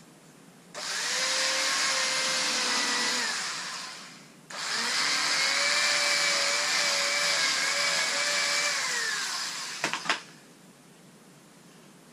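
A small electric motor runs in two bursts, a shorter one and then a longer one about five seconds long. Each time it spins up to a steady whine and winds down again. A few sharp clicks come as the second burst ends.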